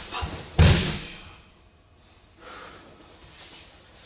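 A person thrown onto a tatami mat lands with a single heavy thud a little over half a second in, followed by hard breaths.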